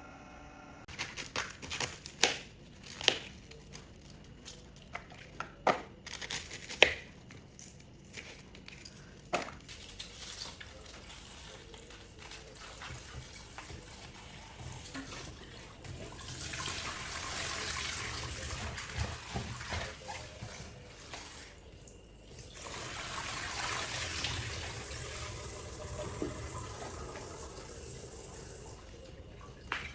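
Sharp clatters and knocks of kitchen utensils, then water running in two spells of several seconds each.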